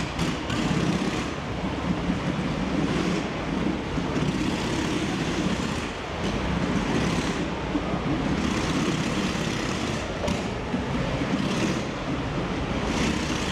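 Motorcycle engine running steadily as it circles the wooden wall of a Wall of Death drum.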